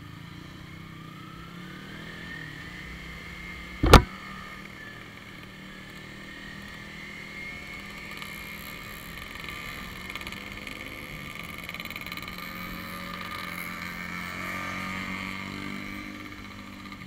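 Sport motorcycle engine running under way, its pitch rising as it revs up through the gears. A single sharp, loud knock comes about four seconds in.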